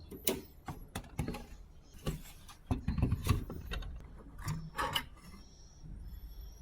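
Hand tools and small metal and plastic parts being handled: irregular clicks, taps and rattles, with a louder cluster of knocks about three seconds in.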